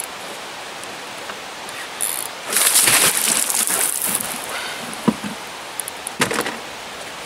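A hooked wels catfish splashing and thrashing at the surface beside the boat, a loud burst lasting about a second and a half, over a steady hiss of moving water. A couple of sharp knocks follow near the end.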